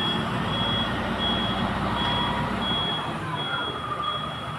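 A vehicle's reversing alarm sounding high, evenly spaced beeps over a running engine whose low rumble drops away about three seconds in.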